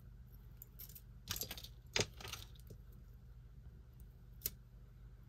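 Light clinks and taps of small metal costume jewelry (chains, beads, earrings) being handled: a few clinks about a second in and again around two seconds, and one sharp tick near the end.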